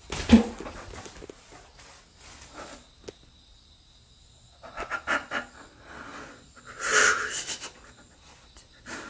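A person breathing close to the microphone, with scattered rustles and scuffs as they move. The loudest breath comes about seven seconds in.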